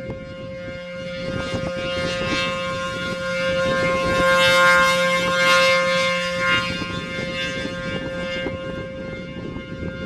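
ACA P-15 rotating outdoor warning siren sounding its steady alert tone at one constant pitch. As the rotating horn sweeps past, the tone swells to its loudest around five seconds in and then fades again. Wind buffets the microphone underneath.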